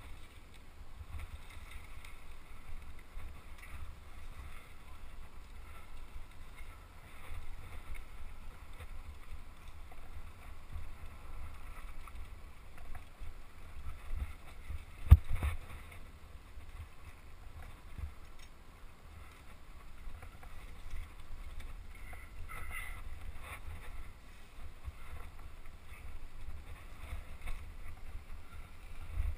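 Mountain bike riding down a rough dirt singletrack, heard through a GoPro: steady low wind rumble on the microphone and the rattle of the bike over the trail. A sharp knock comes about halfway through.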